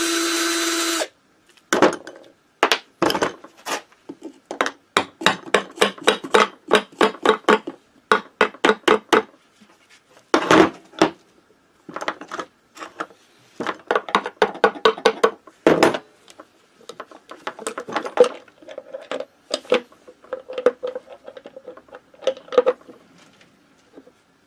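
A cordless drill-driver whirs for about a second at the start. Then a hand ratchet clicks in quick runs, with short pauses between them, as the clutch cover screws of a Minarelli AM6 two-stroke engine are undone.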